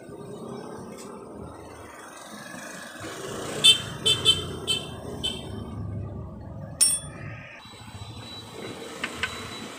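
Steel spanner clinking against the cam-gear pins and metal of a Royal Enfield Bullet 350 engine's open timing case, as the loose pins are adjusted. A quick run of five or six ringing metal clinks comes a few seconds in, one more follows about seven seconds in, and two light ticks come near the end, over a steady low background noise.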